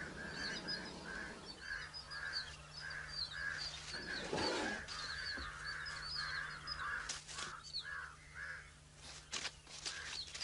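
High chirping calls repeating steadily about twice a second, with quicker twittering calls above them and one louder, lower call about four and a half seconds in.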